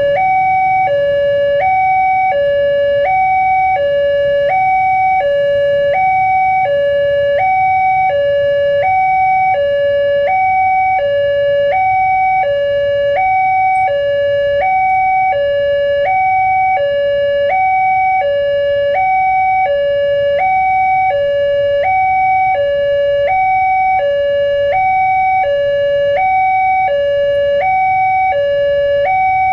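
Railway level-crossing warning alarm sounding to signal an approaching train. It is a loud electronic two-tone signal that switches evenly between a lower and a higher tone about every three quarters of a second.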